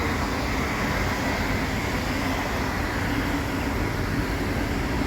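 A passing train, heard as a steady rumble and rushing noise that stays even throughout.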